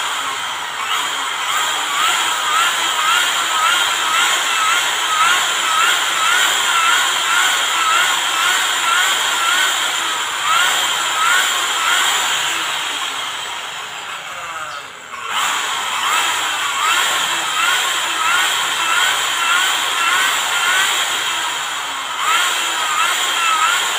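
Electric hand drill running steadily while it spins a valve against its seat in a Yamaha Mio Soul GT cylinder head, lapping it with grinding compound; a repeating chirp comes about two or three times a second over the motor whine. About halfway through the drill winds down briefly and starts up again.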